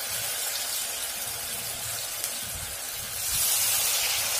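Vedailota (skunk vine) leaf pakoras sizzling as they deep-fry in hot mustard oil in a kadai. The steady hiss grows a little louder a bit past three seconds in.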